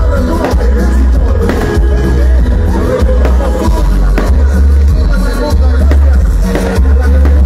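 Loud live cumbia music played through a concert sound system, with very heavy bass and a steady beat of sharp percussion strokes.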